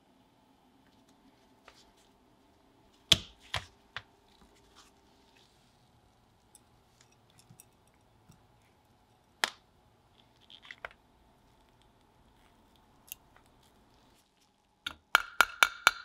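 Scattered light clicks and taps of small objects being handled on a workbench, the sharpest about three seconds in and near the middle. About a second before the end, a fast run of loud ringing taps starts, about six a second.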